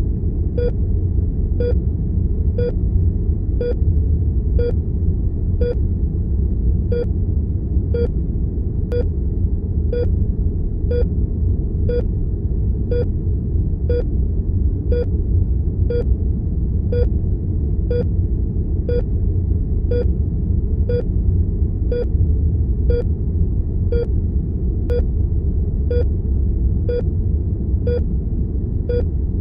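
Heart monitor beeping steadily at about one short, mid-pitched beep a second, with one beat missing about six seconds in, over a loud, steady low rumble of room and equipment hum.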